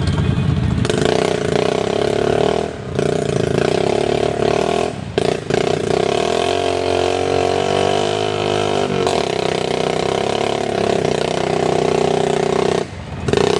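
ATV engine revving hard and held at high revs, working in deep mud during a tow-strap recovery. The revs drop off briefly a few times and waver up and down near the middle.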